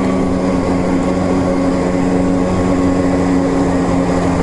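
Snowmobile engine running at a steady speed while riding, a constant drone that holds one pitch.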